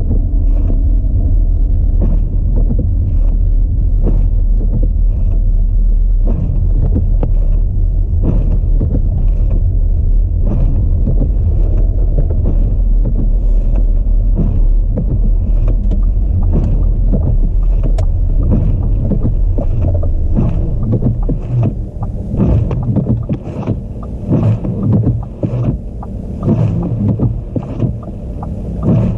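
Audi A4 driving through a snowstorm: a steady, loud low rumble of road and running gear, with wind buffeting the microphone in uneven gusts. About two-thirds of the way in the deep rumble drops off and the sound turns choppier and gustier.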